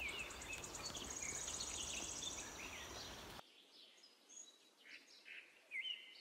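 Small birds chirping with short, repeated calls that rise and fall in pitch, and a fast high trill in the first half. Over them runs a rough rustling noise that cuts off abruptly about three and a half seconds in, leaving the bird calls clear and quieter.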